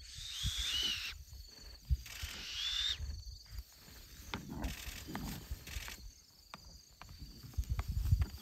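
An animal's high call, a short curved glide, heard twice about two seconds apart near the start, over low knocks and rumbles of wind and handling on the microphone.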